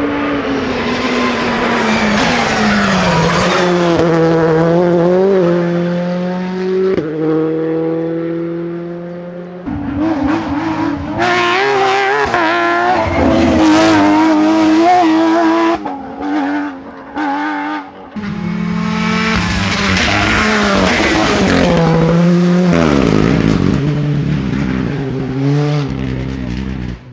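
Porsche 911 rally car's flat-six engine at full stage pace, revs climbing and falling through the gears with sudden steps at the shifts. It goes choppy for a couple of seconds past the middle as the driver lifts and brakes, then pulls hard again.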